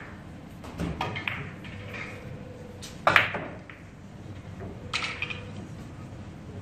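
Carom billiard shot: the cue tip clicks on the cue ball about a second in, then quick ball-on-ball clicks. A louder sharp clack comes about three seconds in and another click near five seconds as the balls collide and come off the cushions.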